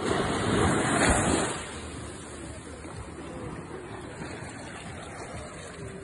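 Small sea waves washing up over a sandy beach, with a louder surge of surf in the first second and a half, then a steady wash.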